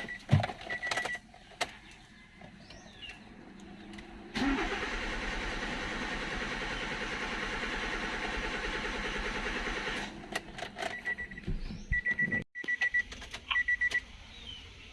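Nissan Sentra's starter cranking the engine for about six seconds without it catching, then cutting off suddenly. This is the no-start condition, traced to a failed fuel pump. Clicks come before and after the cranking, and a short series of high electronic beeps sounds near the end.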